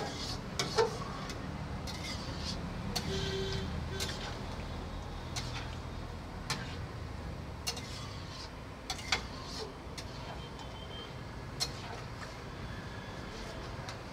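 Metal ladle clinking and scraping against a kadhai as chicken curry is stirred: scattered sharp clinks over a steady low rumble.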